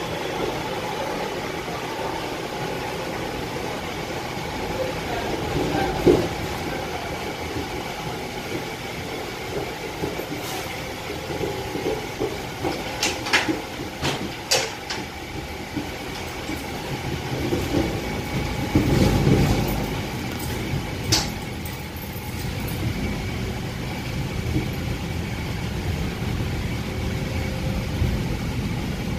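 Passenger train coach running on the rails, heard from inside: a steady rumble of the running gear, with a single thump about six seconds in, a few sharp clicks around the middle and a heavier rumble a little later.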